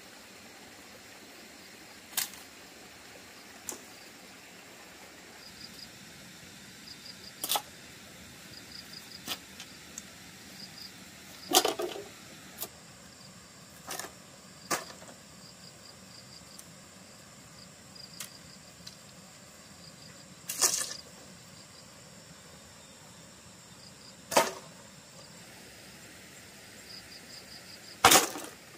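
A dozen or so sharp knocks at irregular intervals, a few seconds apart, some much louder than others. Behind them runs faint, evenly pulsed insect chirping.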